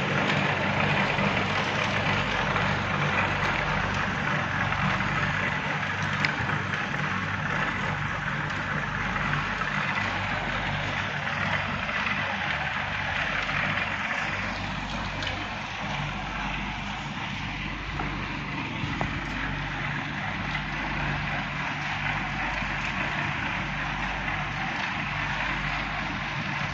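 A steady low engine or motor hum under a broad, even hiss.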